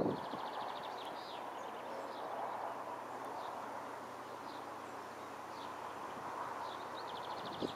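Small birds singing, with a rapid trill near the start and another near the end, over a faint steady rumble from a distant Class 66 diesel locomotive hauling a freight train.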